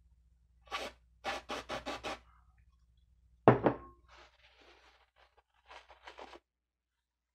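A quick series of short hissing squirts from an aerosol cleaner can, sprayed onto a laptop CPU to dissolve old thermal paste. About three and a half seconds in, the metal can knocks once as it is set down on the wooden table. Then comes faint rubbing and scratching as a tissue wipes the paste off the CPU.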